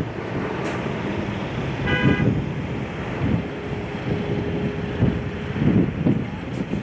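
Road traffic noise with wind buffeting the microphone, and a brief car horn toot about two seconds in.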